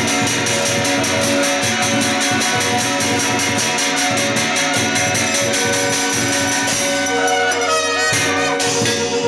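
Chinese ritual band music: several suona shawms with brass bells play a shrill, held melody over a fast, steady beat of percussion. The melody bends and wavers in pitch near the end.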